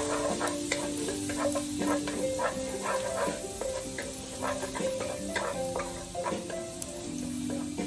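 Minced garlic sizzling in oil in a non-stick wok while a wooden spatula stirs it, with quick repeated scrapes and taps against the pan. Background music with held notes plays underneath.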